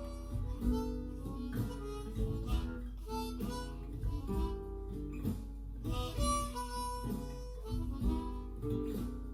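Blues harmonica improvising in A major, with held and bent notes, over a strummed acoustic guitar accompaniment and a steady low hum underneath.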